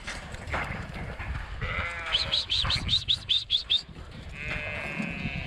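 Dohne-Merino cross sheep bleating in the yards, with a long bleat starting near the end. In the middle comes a fast run of about ten short, high chirps, which is the loudest part.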